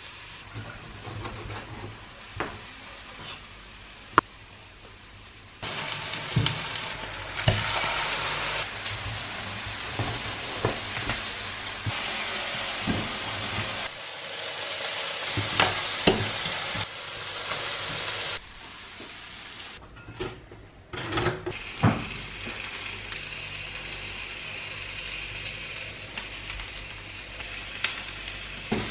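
Food sizzling as it fries in nonstick pans: chopped mushrooms and onions, then potato wedges. A spatula knocks and scrapes against the pan while stirring. The sizzle jumps up sharply about six seconds in and stays loud until past halfway, then drops back to a lighter sizzle.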